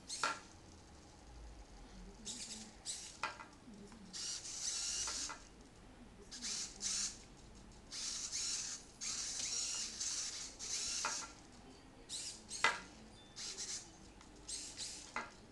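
Hobby robot servos (ProGear, 15 kg·cm) in a humanoid robot whirring in short, high-pitched bursts, from a fraction of a second to over a second each, as the waist is driven by joystick. A few sharp clicks fall between the bursts, the loudest just under two-thirds of the way through.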